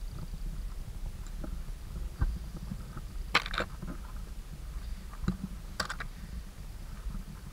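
A hiker's footsteps scuffing up a steep grassy, stony path, with a few sharper scrapes and clicks, over a steady low rumble of wind on the microphone.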